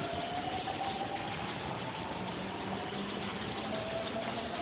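Split-flap train departure board flipping its flaps to change a train entry, a rapid clatter of flaps, over a steady station hubbub and a faint whine that rises slowly in pitch.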